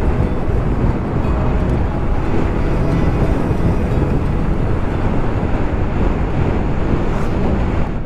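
Steady rush of wind and road noise over the microphone of a motorcycle cruising at road speed, with the engine's drone underneath.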